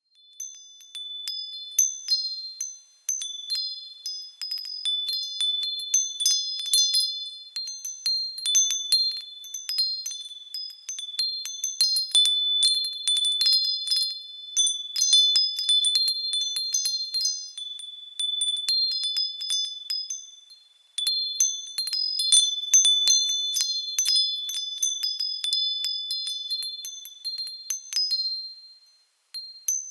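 Small high-pitched bells ringing in quick, irregular strikes of several overlapping tones. They come in phrases a few seconds long, with brief pauses between them.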